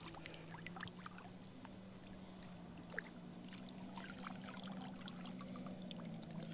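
Faint splashing and trickling of shallow water as a small hand scoop net is worked through waterweed, with scattered small ticks and one sharper tick about three seconds in, and water draining from the mesh as the net is lifted out near the end. A faint steady low hum runs underneath.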